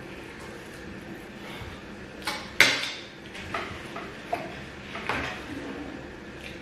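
Cutlery clinking and tapping against a plate during eating: a handful of short sharp clicks, the loudest about two and a half seconds in.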